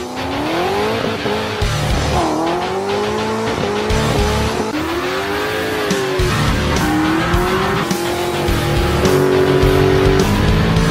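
Music with a heavy bass beat mixed with Mustang V8 engines revving and tyres squealing, the pitch gliding up and down again and again.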